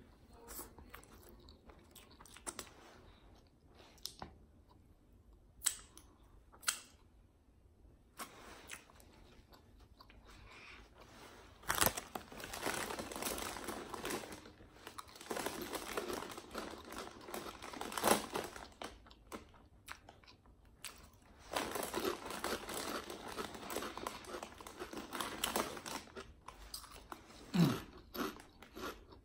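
Close-miked chewing of the last mouthfuls of a sub sandwich, in long stretches of a few seconds each, after a few light clicks and rustles of the paper wrapper as crumbs are picked off it. Near the end comes a short low throat sound that falls in pitch.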